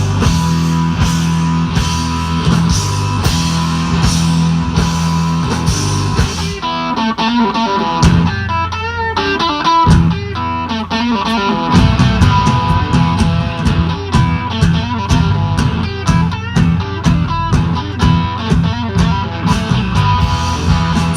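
Live blues-rock band playing an instrumental intro on electric guitar, bass and drums with a steady beat. About six seconds in, the band thins out while the electric guitar plays wavering, bent notes, and the full band comes back in around twelve seconds in.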